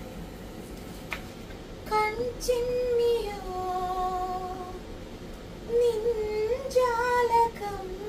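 A woman singing a slow melody alone, without accompaniment, holding long wavering notes. She starts about two seconds in and breaks off briefly in the middle before going on.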